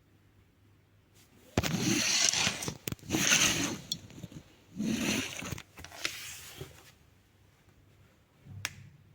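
Handling noise from unboxing a fan: two stretches of crackling rustle, each a second or two long, then a single sharp click near the end.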